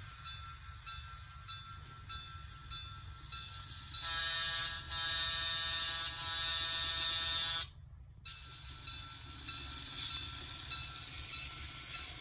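Model locomotive's DCC sound decoder playing diesel locomotive sounds through its small speaker: a light repeated ringing about twice a second, then a loud horn blast of about three and a half seconds around the middle, after which the engine sound carries on.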